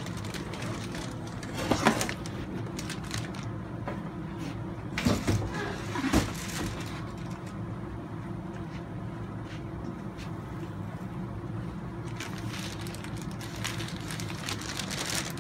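Clear plastic bags of RC kit parts crinkling and being set down on a wooden workbench, with a few louder bumps of bagged parts, over a steady low hum in the room.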